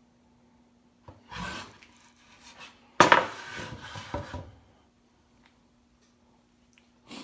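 Oak boards being handled. There is a short wood-on-wood scrape about a second in. About three seconds in comes a sudden loud knock, the loudest sound, followed by a second or so of rubbing and clatter. A faint steady hum runs underneath.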